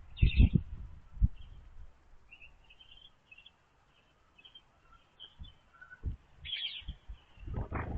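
Small birds at a feeder giving short, scattered chirps, with low dull thumps and knocks in the first second and again near the end.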